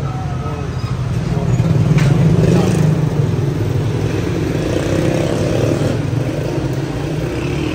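Street traffic with a motor vehicle engine running close by, swelling about two seconds in and easing off toward the end.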